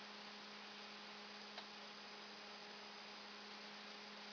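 Near silence: a faint, steady electrical hum over a soft hiss, with one faint tick about a second and a half in.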